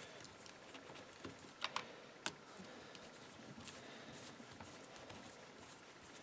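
Faint tool handling with light ticks and, about two seconds in, three sharp metal clicks as an Allen key turns out the screws holding a chainsaw carburetor.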